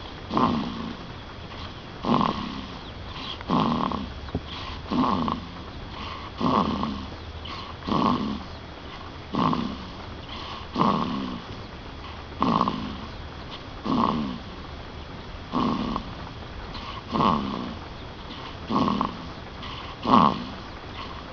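Steady snoring: a short snore about every one and a half seconds, each falling away quickly.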